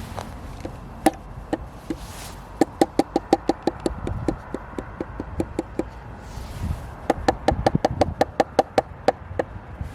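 Quick, evenly spaced light clicks, about seven a second, in two runs, with a few single knocks between them, from hand adjustment of a homemade circular-saw jointing jig.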